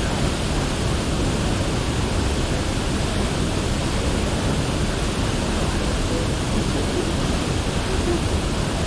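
Rushing water of the Rio Celeste, a steady even rush of noise with no breaks.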